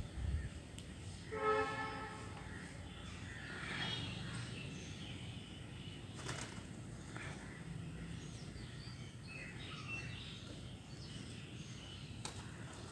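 A crow giving one loud caw about a second and a half in, over steady outdoor background noise, with faint short calls of other birds later on.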